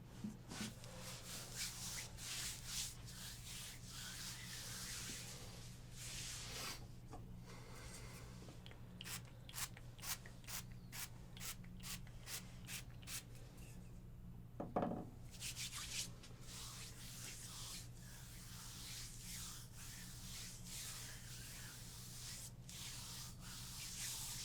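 Hands rubbing and stroking over skin during a full-body massage, a soft continuous friction hiss, with a run of crisp, evenly spaced strokes about two a second in the middle. A brief louder sound comes about fifteen seconds in, over a steady low hum.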